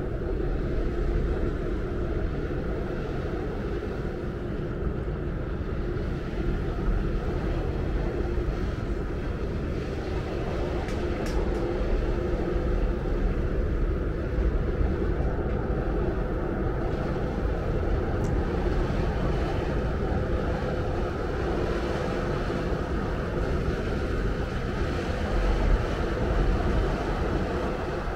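Car ferry's engines running with a steady low rumble and hum as the vessel comes in to dock.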